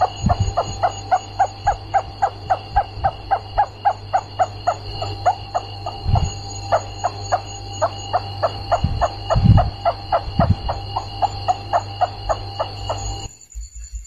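Rats squeaking in a fast, even series of short chirps, about four a second, over a steady high whine and a low hum. The track cuts off abruptly near the end.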